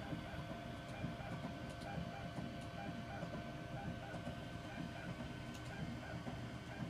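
3D printer running mid-print: its stepper motors give short whining tones that keep changing pitch as the print head moves, over a steady hum, with a few faint clicks.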